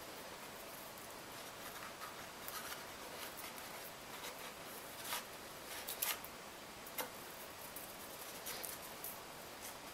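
Faint rustling and small clicks of a tape-wrapped wire wreath frame and a budded twig being handled as the twig is wound around the frame, with the sharpest clicks about five, six and seven seconds in.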